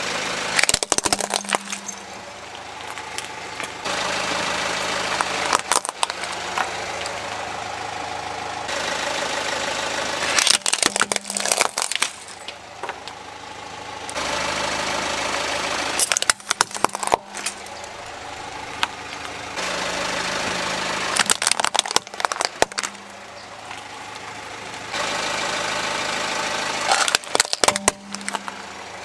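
A car tyre rolling over plastic toy vehicles and other small objects, crushing them in clusters of sharp cracks and crunches about every five to six seconds. Between the crushes the car's engine idles steadily, and the background changes abruptly from one crush to the next.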